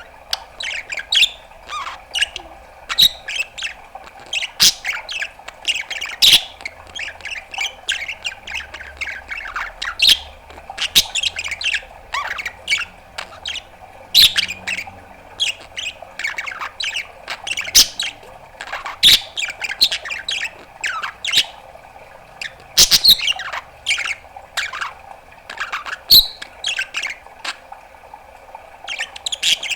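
Budgerigar chattering non-stop: a rapid stream of short chirps, squawks, clicks and quick sweeping whistles.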